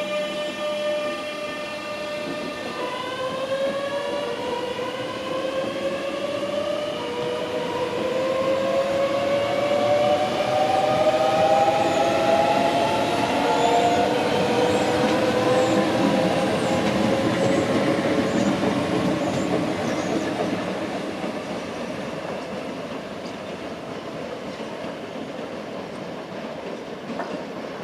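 Electric train pulling away: its traction motors give a whine that steps up in pitch again and again as it accelerates. It is loudest about halfway through, then fades as it draws away.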